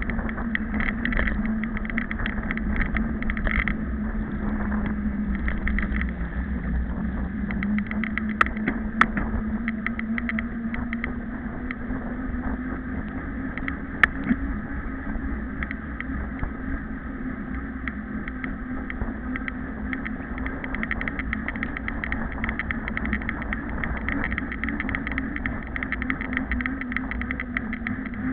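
Riding noise of a mountain bike on asphalt, picked up by a camera mounted on the bike: steady wind rumble on the microphone, a hum that drifts slightly in pitch, and rapid rattling. There are a few sharp clicks, two close together about eight to nine seconds in and one about fourteen seconds in.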